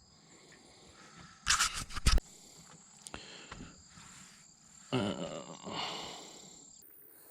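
A short clatter of small hard objects being handled, likely fishing tackle and a lure. A few seconds later comes a drawn-out sound that slides down in pitch.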